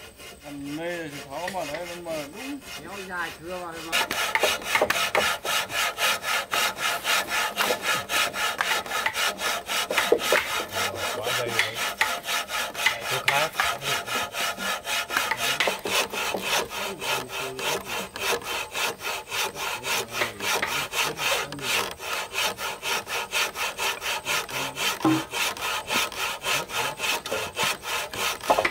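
Wood being cut with a hand saw in quick, regular strokes, about four a second. The strokes get louder about four seconds in and keep an even rhythm after that.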